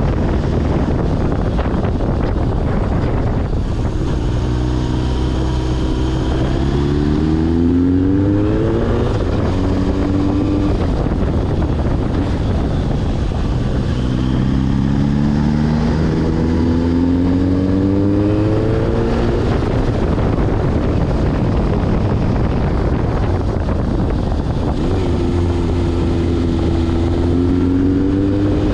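Suzuki GSX1100S Katana's air-cooled inline-four engine accelerating three times, its pitch rising through each run, with wind noise in between.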